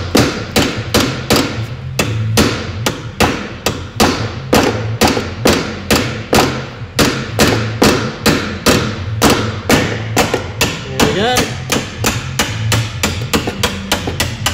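Rapid, steady hammer blows, about three a second, striking a door hinge pin remover to drive the hinge pin up and out of a car door hinge.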